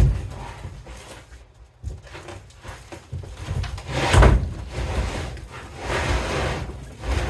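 A heavy mini milling machine being pulled and slid out of its packing: wood scraping and knocking, with a sharp knock at the start and longer scraping surges about four and six seconds in.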